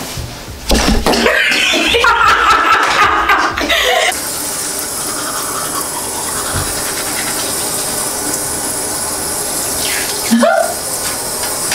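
Water running steadily from a tap into a sink. In the first few seconds, before the flow settles, there is clattering and a high squeal.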